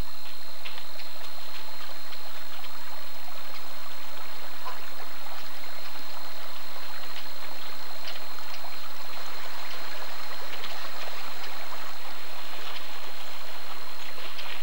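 Rattlesnake rattling: a continuous dry buzz from its tail rattle, the snake's warning to larger animals not to step on it.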